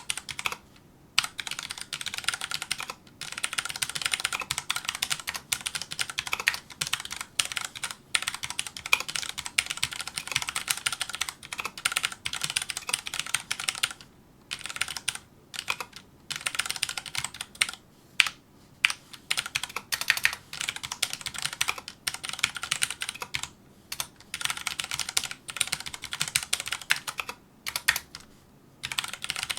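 Fast continuous typing on a Filco Majestouch2 mechanical keyboard with Cherry MX Brown tactile switches: rapid clicking and clacking of keystrokes, with several brief pauses.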